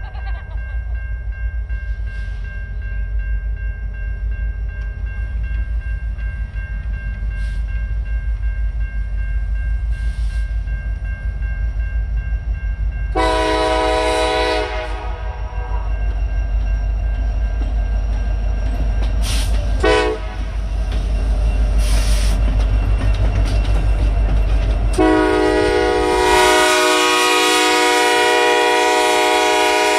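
Diesel freight locomotive passing with a steady engine rumble, its air horn sounding a long blast about 13 seconds in, a short blast near 20 seconds, and a long blast from about 25 seconds to the end.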